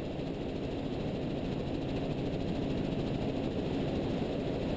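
Tour helicopter climbing away just after takeoff: steady engine and rotor noise, slowly getting louder.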